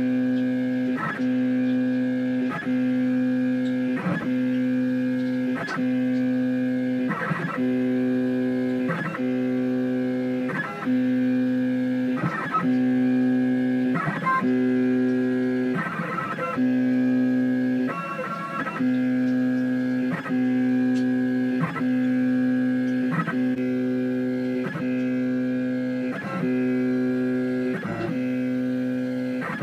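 Background music played on guitar, with chords changing at a steady, even pace.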